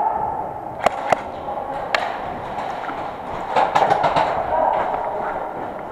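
Airsoft guns firing single sharp snaps: a few spaced shots, then a quick burst of several about three and a half seconds in, over a steady background hiss.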